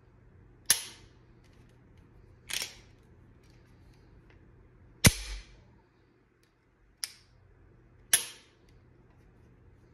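Five sharp metallic snaps from a Glock 43X MOS pistol's action as its slide is worked by hand; the loudest comes about five seconds in.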